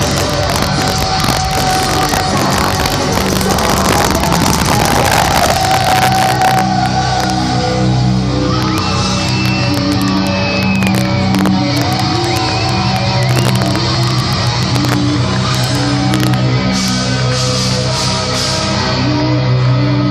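Heavy metal band playing live, heard through a poor, distorted audience recording. The full band is dense and loud for the first few seconds, then thins to held guitar notes over a steady bass line.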